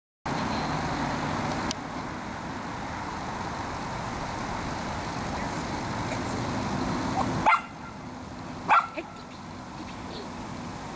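A dog barking: two short, sharp barks about a second apart, past the middle, over a steady background hiss.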